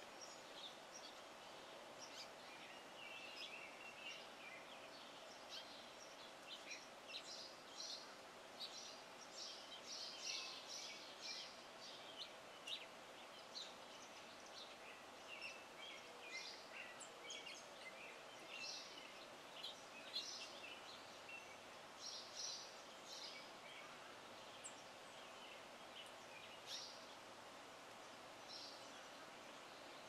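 Small songbirds chirping and calling faintly in short, scattered notes and brief quick runs, with a faint steady hum underneath.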